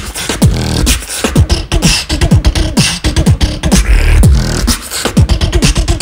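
Solo beatboxing into a microphone: a fast run of sharp mouth clicks and snares over deep bass kicks that drop quickly in pitch, with held low bass notes about a second in and again near four seconds.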